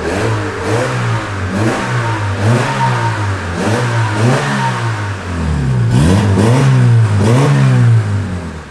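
Turbocharged Honda D-series four-cylinder in a Civic sedan, revved in a string of quick blips, its pitch rising and falling about once a second. The exhaust runs through the stock resonator and muffler with the electric exhaust cutout valve closed. The sound drops away just before the end.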